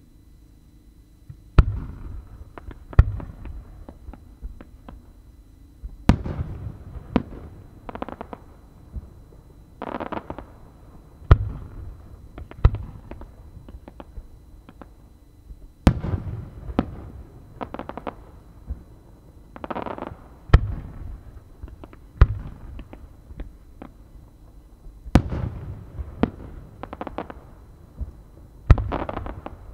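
Aerial firework shells loaded with strobe stars, launching and bursting. Sharp booming reports come every second or two, each trailed by a rumbling echo and crackle, with short lulls between volleys.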